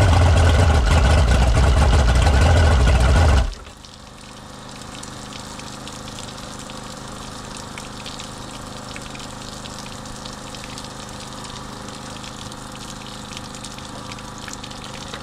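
Boat's outboard engine idling, judged a lot better idle than before the repair, then shut off abruptly about three and a half seconds in. A faint steady hum with light ticking carries on after it stops.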